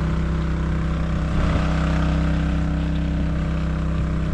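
Small engine-driven water pump running steadily, with an even low hum throughout.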